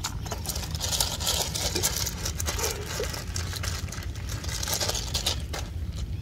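Clear plastic bag crinkling and rustling as a caught climbing perch is pushed into it by hand, a dense crackle with sharp ticks lasting about four seconds, over a steady low rumble.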